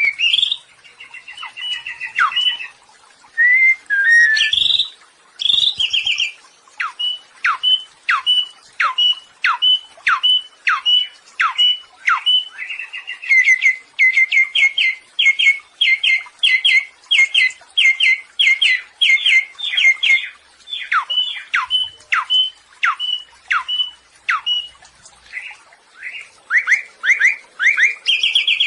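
Samyong songbird singing a long series of loud whistled notes that sweep sharply downward, about two a second, with a run of quicker, clipped notes in the middle.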